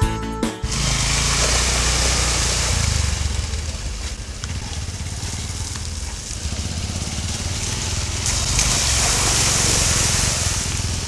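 A short tail of plucked-string music cuts off under a second in. Motorcycles then ride through a large muddy puddle: a steady engine rumble with water splashing and spraying from the wheels, the spray hiss loudest soon after the music stops and again near the end.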